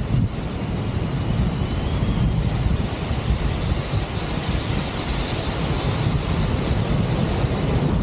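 Wind noise from the airflow of paraglider flight rushing over the camera microphone: a steady, loud rush that is heaviest in the low rumble.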